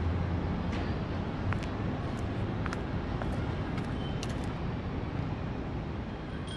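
Steady outdoor background noise, like distant traffic, with a few faint clicks and ticks; it grows a little fainter toward the end.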